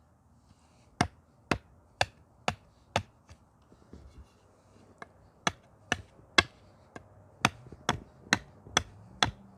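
A small forged knife made from bed-frame steel hacking into wood, with sharp chops about two a second: five strikes, a pause of about two seconds, then a run of about ten more.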